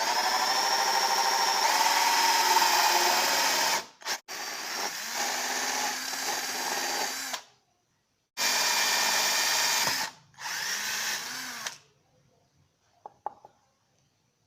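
Homemade mini chainsaw's small motor whining at high speed, switched on and off in four runs of a few seconds each with short breaks, its pitch sagging and recovering at times. A few faint clicks follow near the end.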